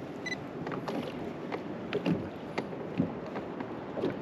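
Water sloshing against a small fishing boat, with scattered light knocks and handling noises. A single short electronic beep comes about a third of a second in.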